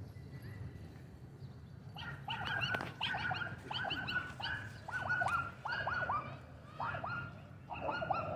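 A dog barking repeatedly in short, high-pitched yaps, starting about two seconds in and coming in quick clusters of two or three, about a dozen barks in all.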